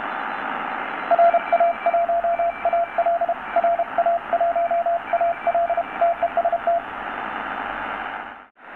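Morse code (CW) on the 80 m amateur band from the speaker of a Tecsun PL-600 shortwave radio in SSB mode: a keyed tone of dots and dashes over steady band hiss, with a fainter second Morse signal higher up. The radio is modified with a resistor on its audio IC to cure audio distortion. The hiss drops out briefly near the end.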